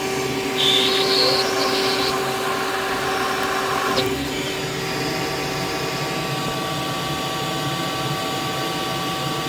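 Shop vac running steadily, sucking a pull string through a wiring hole. About four seconds in there is a sharp click, and its tone changes after it.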